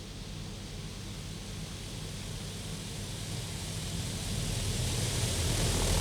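High-pressure water jets of a WashTec Combiwash car wash spraying the car, heard from inside the cabin as a steady hiss over a low hum. The hiss grows gradually louder as the jets move closer.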